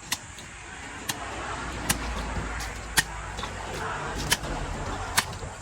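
Sharp chopping strokes on fish about once a second, as a large catla carp is cut up. A passing motor vehicle's engine noise rises and fades under them.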